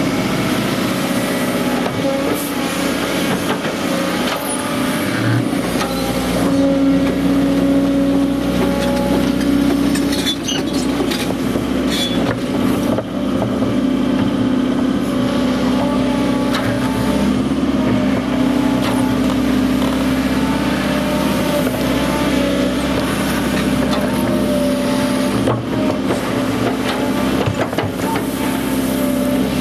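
Volvo EC140 tracked excavator's diesel engine running steadily under working load as the hydraulics move the boom and arm. The engine gets louder and deeper about six seconds in, and a few sharp metallic knocks come around ten to twelve seconds.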